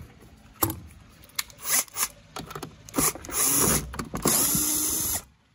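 Cordless drill-driver backing screws out of a plastic vacuum base, with a few short runs and knocks, then two longer runs of about a second each from about three seconds in.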